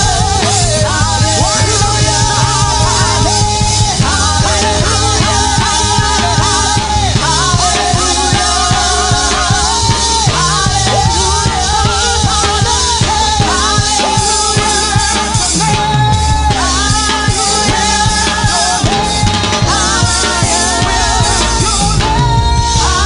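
Fast, loud live gospel praise-break music: a band with quick, steady drumming under a wavering melody line.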